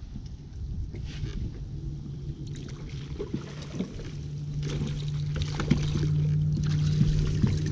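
Steady low hum of a bow-mounted electric trolling motor, growing louder about halfway through. Over it come repeated bursts of fishing-reel cranking as a hooked bass is reeled in.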